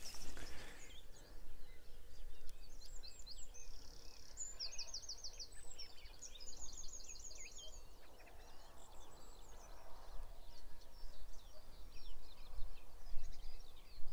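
Small songbirds singing: many high chirps and trills overlapping, with a quick run of repeated notes about four seconds in, over a faint low rumble.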